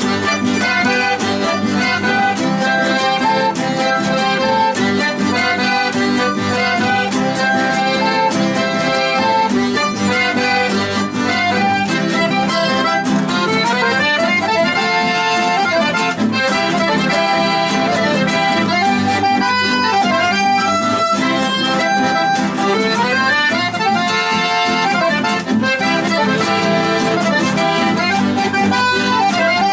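Live chamamé played on accordion with guitar accompaniment, the accordion carrying fast melodic runs that climb and fall.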